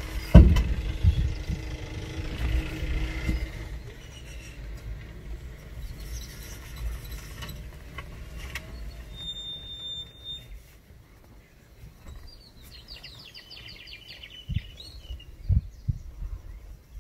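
A vehicle engine running with a low rumble and a steady hum for the first few seconds, with a sharp thump just after the start. It then fades to quieter outdoor ambience, with a steady high whistle a little past halfway, a bird's rapid chirping trill later, and a few low thumps near the end.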